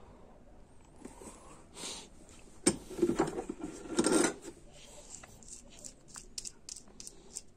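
Transmission parts being handled by hand: a sharp knock about two and a half seconds in, a second or so of rubbing and clatter, then light ticks and clicks.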